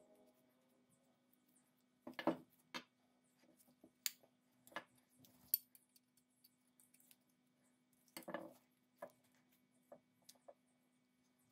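Scattered small metal clicks and light knocks as the rusty iron frame, hammer and trigger guard of an 1840 Stocking & Co. pepperbox pistol are handled and set down on a wooden workbench. The strongest knocks come a little after two seconds and again about eight seconds in, with a low steady hum behind.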